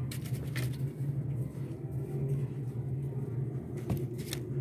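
A steady low hum, with a few light taps and paper rustles as folded raw samosas are handled and set down on a sheet of paper, the clearest two near the end.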